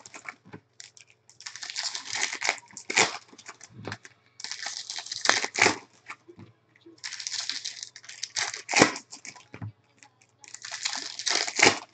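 Plastic-wrapped baseball card packs being torn open by hand: four bursts of wrapper crinkling about three seconds apart, each ending in a sharp tear.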